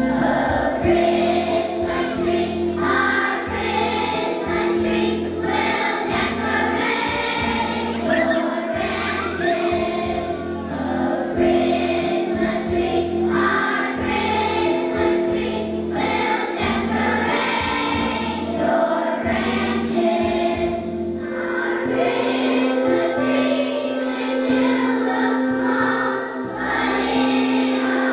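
A choir of first-grade children singing together over instrumental accompaniment with a bass line.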